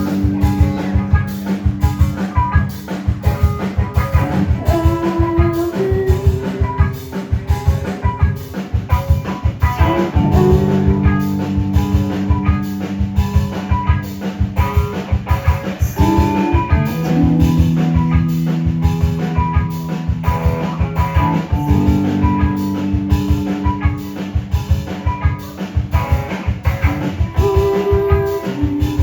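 Live rock band playing: a drum kit keeping a dense, steady beat under sustained guitar chords that shift every few seconds.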